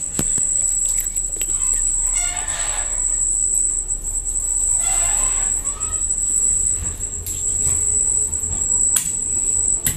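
A fish being handled on a wooden chopping board, with a few sharp knocks, over a steady high-pitched insect trill and a low hum. Two short calls sound in the background, about two and five seconds in.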